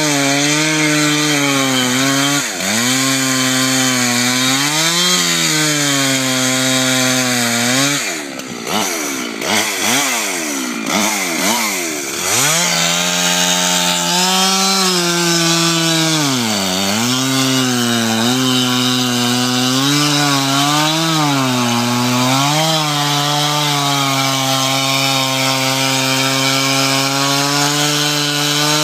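Two-stroke chainsaw running at high revs while cutting through ice, its pitch dipping again and again as the bar takes the load. From about eight to twelve seconds in, the engine speed drops low and wavers, then picks back up to full revs.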